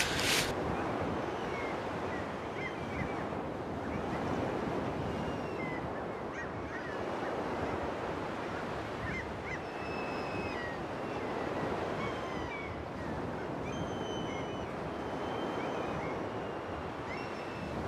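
Outdoor ambience: a steady rushing noise like wind, slowly swelling and easing, with many small birds chirping and giving short whistles throughout.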